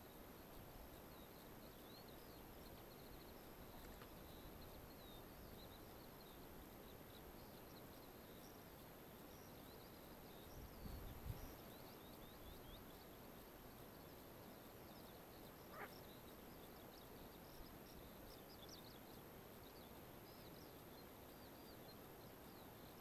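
Near silence in open country: faint, high chirping calls of distant small animals, many short calls spread throughout, with a soft low rumble about eleven seconds in.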